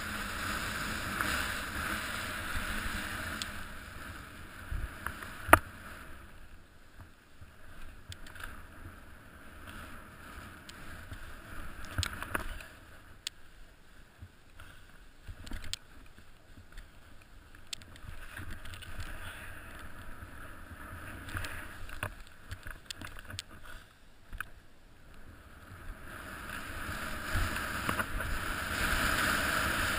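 Snowboard sliding and carving through soft snow: a swishing hiss that swells and fades with the turns. There is a sharp knock about five seconds in and a few fainter clicks.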